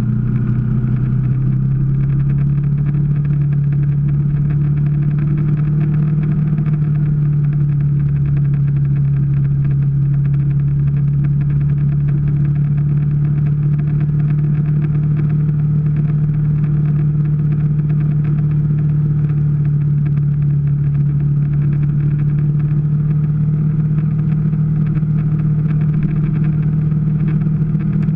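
Small Kawasaki Ninja's parallel-twin engine running steadily at cruising speed, its pitch rising a little in the first couple of seconds, with wind rush underneath.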